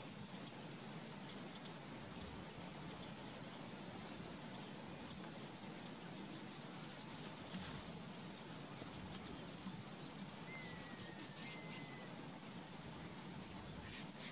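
Faint chirps of small birds over a steady low background hum: scattered short, high chirps, some in quick runs, and one thin whistled note that slides slightly down about three-quarters of the way in.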